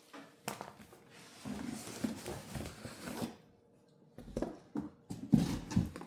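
Scraping, rustling and knocking of a cardboard shipping box being cut and opened by hand, with the loudest knocks near the end.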